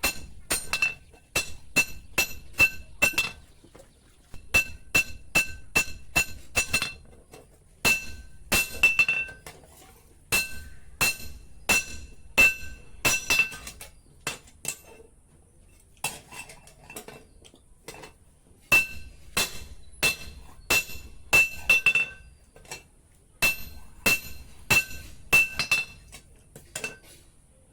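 Blacksmith's hand hammer striking steel on an anvil in series of ringing blows, about two to three a second, with short pauses between series.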